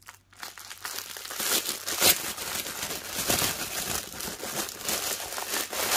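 Clear plastic wrapping being handled and pulled open around a bundle of small bags of diamond-painting drills: a dense run of small crackles that starts about half a second in.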